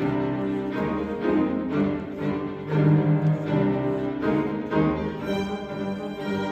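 String trio of violin, viola and cello playing a classical chamber piece live, heard from the hall seats, with accented bowed strokes about twice a second. About five seconds in, the upper strings move to sustained high notes.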